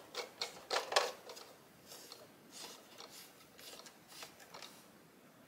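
A plastic leg being screwed by hand into the plastic body of an Addi Express knitting machine: faint scraping and clicking of plastic on plastic, strongest in the first second.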